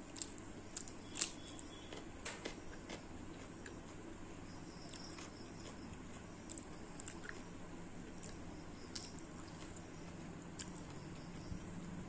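A person eating rice and chicken curry by hand: chewing and wet mouth smacks, with fingers squishing the rice. Short irregular clicks are scattered through it, the sharpest about a second in.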